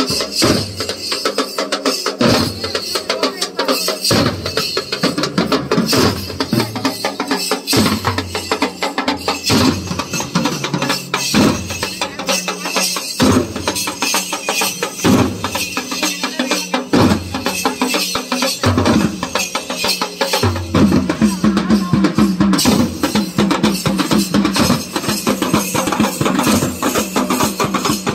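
Dhol drums played in a loud, fast, driving rhythm, with deep bass strokes landing every second or two over dense rapid strokes; about three quarters of the way through, the low beat becomes denser.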